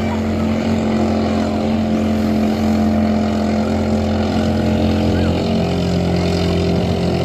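Motorboat engine running at a steady pitch, a continuous low drone, with a few faint short chirps above it.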